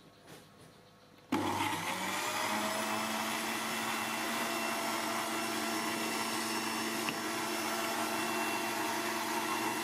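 Countertop electric blender switched on about a second in, its motor spinning up over about a second to a steady high-speed whir as it blends rambutan into juice.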